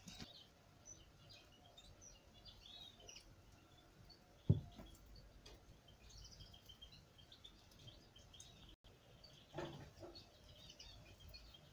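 Faint chirping of small birds in the background, short high notes scattered throughout. One sharp thump a little under halfway through, the loudest sound, and a softer knock with some rustling later on.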